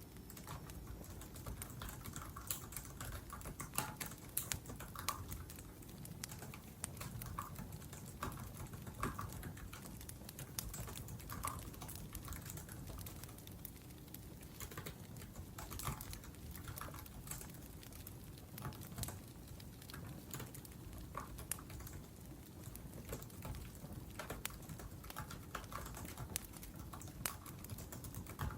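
Laptop keyboard typing: irregular runs of quick key clicks with short pauses, over a steady low crackle and hiss of a wood fire burning.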